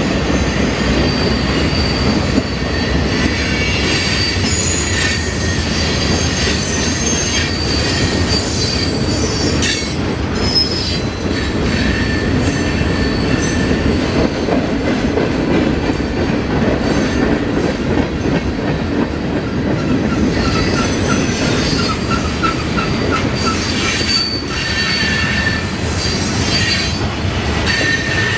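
Freight cars of a Louisville & Indiana Railroad train rumbling steadily through a grade crossing: a continuous low rolling noise of wheels on rail, with thin high wheel squeal coming and going.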